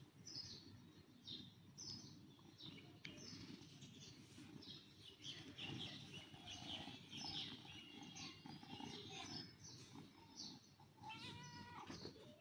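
Grey tabby kitten meowing faintly while being petted, with one clearer, drawn-out meow near the end.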